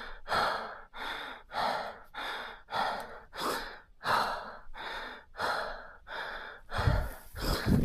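Mountain biker breathing hard after a rough descent, with rapid, regular in-and-out breaths about two a second. Low rumbling thumps join in near the end.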